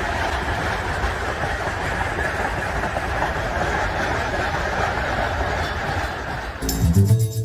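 A steady rumbling, rushing noise with no distinct strikes. It gives way abruptly to music near the end.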